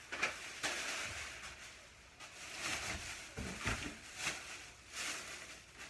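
Groceries being handled and unpacked: irregular rustling of packaging with scattered clicks and a few light knocks of items set down about halfway through.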